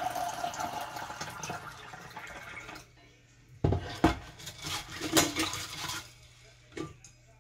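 Hot water pouring from a kettle through a stainless steel canning funnel into a glass mason jar of beans, with a slightly falling pitch as the jar fills, stopping after about three seconds. Then two sharp knocks and a few clinks as the funnel and a plastic bubble-remover tool knock against the glass jar.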